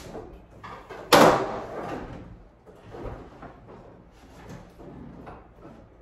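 A loud hollow bang about a second in that rings briefly, then fainter knocks and scuffs, as an over-the-range microwave is shoved and shifted against the underside of the upper cabinet while being mounted.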